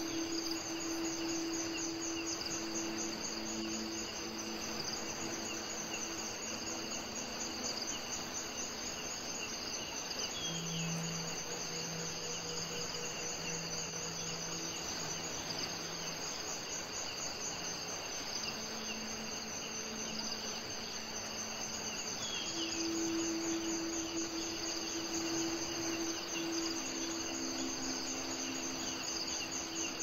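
Crickets trilling steadily over an even hiss, with low sustained tones that shift in pitch every few seconds. A short chirp comes about eleven seconds in and again a little past twenty-two seconds.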